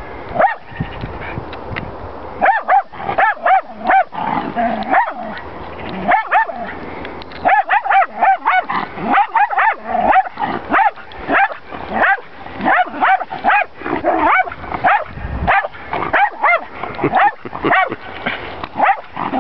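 Jack Russell terrier barking at horses in rapid, shrill yaps, coming in quick bursts of several barks with short gaps between.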